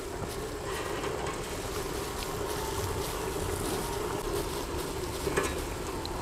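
Breaded beef cutlets deep-frying in hot oil: a steady sizzle with faint scattered pops.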